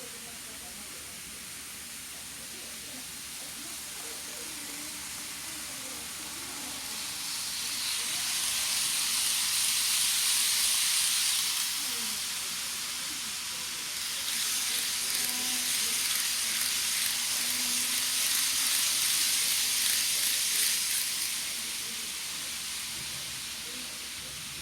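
Model railway train running along the track, heard from the camera car riding on it: a steady hissing rush of wheels and motor that swells louder twice in the middle, for several seconds each time.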